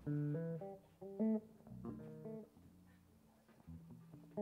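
Electric bass playing a solo melodic intro: short phrases of separately plucked notes, with pauses between them.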